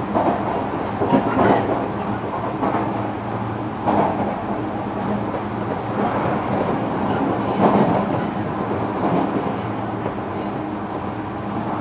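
On-board running sound of a JR Kyushu 305 series electric train, heard inside motor car MoHa 305-106. Wheels knock over rail joints every second or two above a steady rumble and a low hum from the permanent-magnet traction motors.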